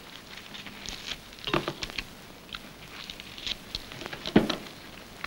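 Scattered small clicks and crackles of an eggshell being cracked and picked off by hand, with one louder knock about four and a half seconds in.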